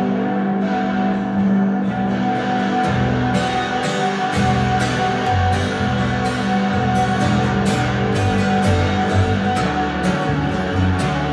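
Live instrumental music from an acoustic guitar and a plucked upright double bass playing together. The bass moves between low notes every second or so under the guitar's picked notes.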